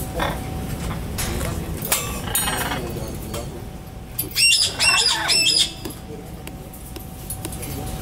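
A parrot gives three loud calls in quick succession about half a second apart, each rising then falling in pitch.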